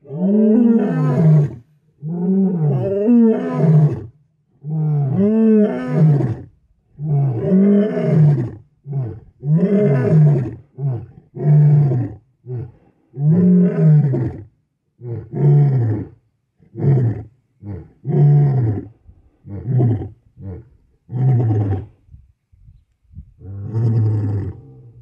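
Male lion roaring: a bout that opens with four long, deep roars of about two seconds each, then breaks into a run of shorter grunting calls, with one last longer call near the end.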